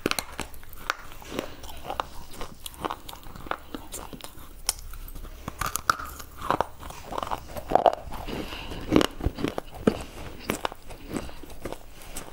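A white slate bar being bitten and chewed right at a clip-on microphone: irregular sharp crunches and snaps of the hard, chalky material breaking between the teeth.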